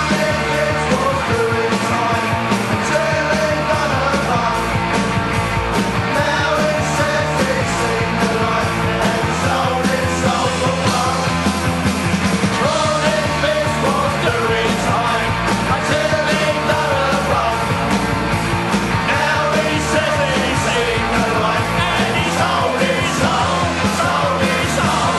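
A punk rock song with a full band playing loud and steady under a sung, shouted lead vocal.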